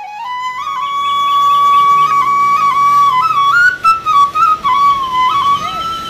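Background music: a single flute melody climbs in small steps, then holds a high note with quick turns and ornaments, and settles on a higher sustained note near the end.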